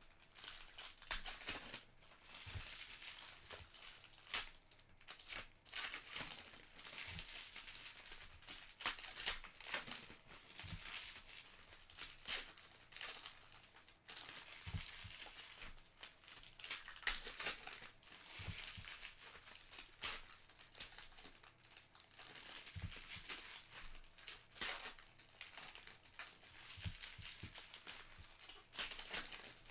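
Foil trading-card pack wrappers crinkling and rustling in the hands as packs are torn open and the cards slid out, in an uneven run of sharp crackles throughout.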